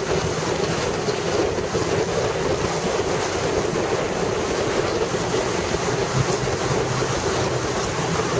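Steady rush of wind on the microphone and traffic and road noise from a motorcycle riding through a road tunnel, with the engine running low underneath.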